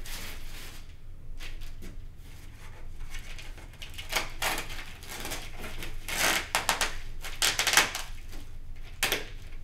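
Packaging rustling and crinkling as hands dig parts out of a cardboard shipping box, in short irregular bursts, loudest about six and seven and a half seconds in.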